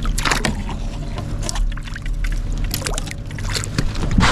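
Sounds of a kayak on the water: a steady low rumble with scattered knocks and clicks.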